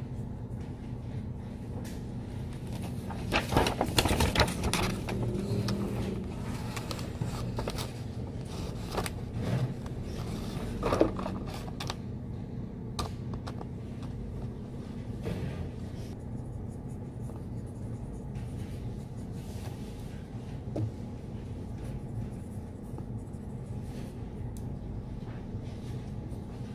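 Pen writing and paper rustling at a desk: scattered soft scratches and clicks, with louder paper handling about four seconds in and again around eleven seconds, over a steady low room hum.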